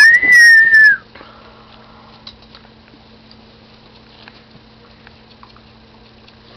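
A dog's single high-pitched yelp, about a second long, rising and then falling in pitch, at the very start. After it there are only faint scattered light ticks over a steady low hum.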